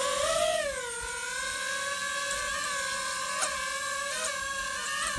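DJI FPV drone's propellers whining as it lifts off: the pitch rises briefly, dips and settles about a second in into a steady hover whine. A single sharp click about three and a half seconds in.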